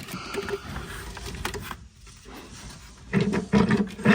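Intake manifold being worked loose from the engine: plastic knocking, rubbing and clicking as it is shifted. About three seconds in come louder, rough, low sounds, which fit grunts of effort.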